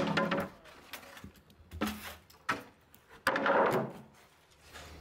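Marine plywood bulkhead panels being handled and stood against one another: several wooden knocks. The loudest comes a little past three seconds in and runs into a short scrape of board on board.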